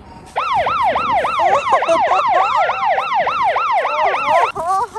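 Electronic toy police siren from an RC police monster truck, switched on by the button on its roof light bar: a fast rising-and-falling wail, about three to four sweeps a second, starting about half a second in. Near the end it changes to a short stepped beeping tone.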